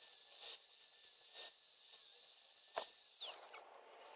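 A hand file rasping on metal in three separate strokes about a second apart, under a faint steady high-pitched whine.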